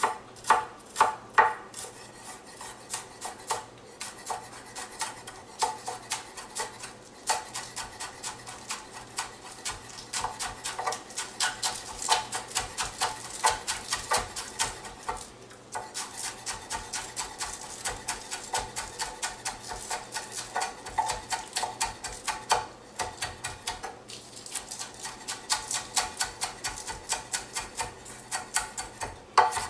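Kitchen knife chopping scallion on a cutting board: rapid, repeated strikes, several a second, with a couple of brief pauses.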